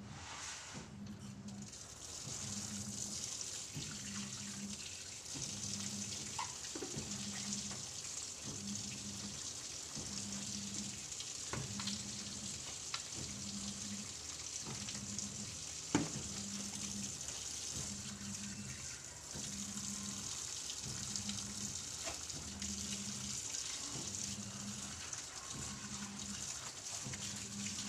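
Tap water running and splashing while clothes are washed by hand, over a steady hiss. A low hum pulses on and off about once a second, with a few sharp knocks, the loudest about sixteen seconds in.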